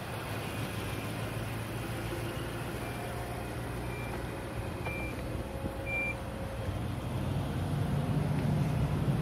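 2018 Nissan Armada SL power liftgate opening, its warning beeping in short high beeps about a second apart while the lift motor whines. A steady low hum runs underneath.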